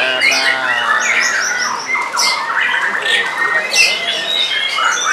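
White-rumped shama (murai batu) in full contest song: a loud, continuous medley of fast rattling runs, sharp slurred notes and high whistles.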